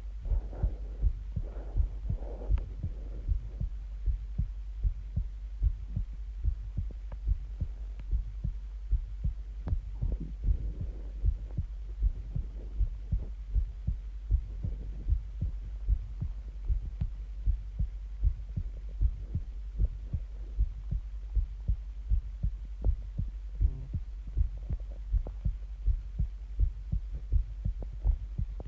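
A human heartbeat: steady, regular low thuds in lub-dub pairs over a constant low hum.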